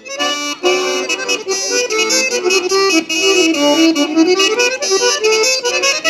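A Russian folk tune played on reed instruments, with the reedy sound of a zhaleika (horn-belled pipe) and several notes sounding together.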